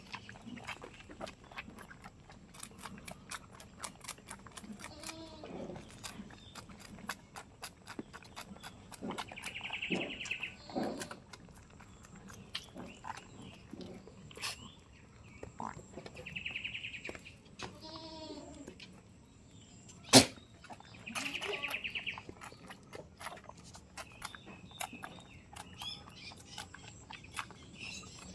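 Goats bleating now and then, about four wavering calls, amid many small clicks and rustles and one sharp knock about twenty seconds in.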